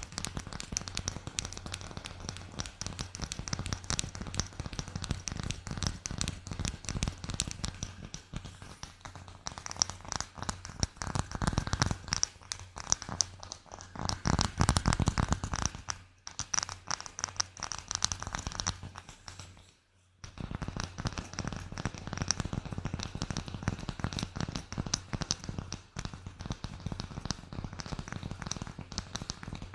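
Close-miked ASMR trigger sounds: a dense, fast run of small clicks, taps and crackles that goes on without pause, except for two short breaks past the middle.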